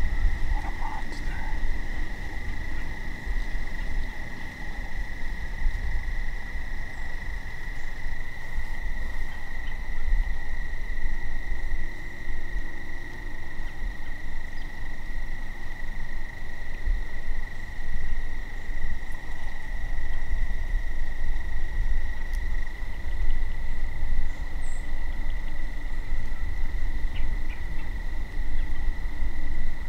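Steady, unbroken trilling of crickets in an evening chorus, with fainter higher trills that drop out partway through. A low rumble runs underneath and is the loudest part.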